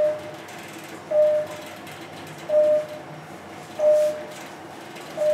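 Elevator floor-passing beep: a short single-pitch beep five times, a little more than a second apart, one for each floor as the car climbs, over the faint running hum of the moving car.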